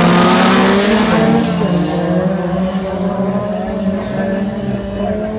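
Several race car engines at high revs, accelerating hard off the start line, several engine notes at once. The sound fades steadily as the pack pulls away.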